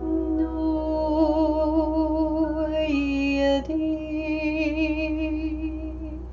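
A woman's voice singing long wordless held notes with vibrato, dipping to a lower note about three seconds in and then rising again, over soft sustained background music.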